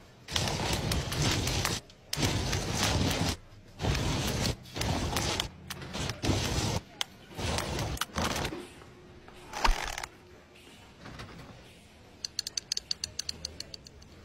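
Cartoon sound effects for an animated spider pushing a potato: a run of rough, noisy bursts each about a second long with short breaks between them, a single sharp click near the middle, then a quick patter of light taps near the end.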